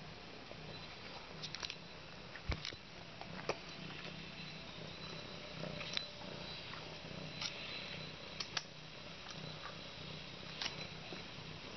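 Brown tabby cat purring steadily while begging for food, with a few soft clicks and taps scattered through.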